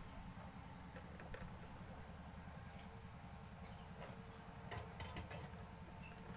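Quiet steady background hum, with a few faint clicks of wire ends being worked into holes in a circuit board about five seconds in.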